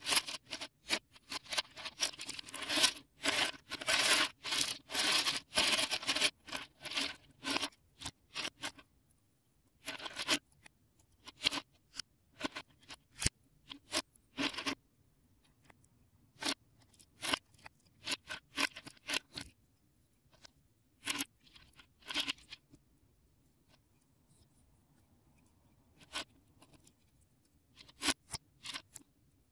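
Plastic Lego bricks clattering and clicking as hands rummage through a loose pile on a baseplate, handling and snapping pieces. The first several seconds are a dense run of clatter, then separate clicks and short clusters come with pauses between them.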